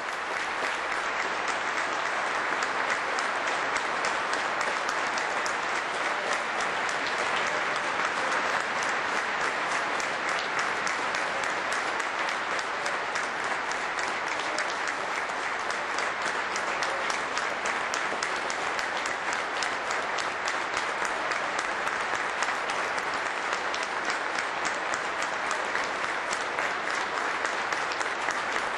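Large football-stadium crowd applauding, a dense, steady wash of clapping that keeps going without letting up.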